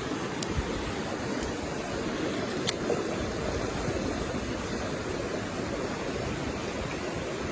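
Mountain stream rushing steadily, its flow still high after a recent typhoon. A few faint sharp clicks sound over it, the clearest nearly three seconds in.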